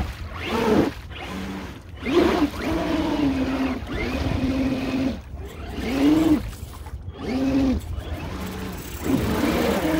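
Electric motors and geared drivetrains of RC 4x4 mud trucks whining, the pitch rising and falling again with each burst of throttle every second or two, mixed with the trucks churning through muddy water.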